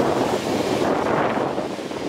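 Jet airliner engine noise: a steady rushing roar that starts to ease off near the end.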